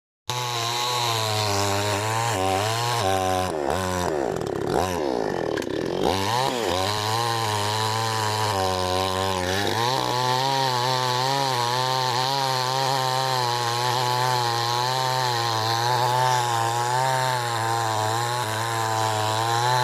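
Chainsaw engine running hard while cutting a tree. Its pitch wavers, drops sharply and climbs back several times about four to six seconds in, then holds steadier at high speed.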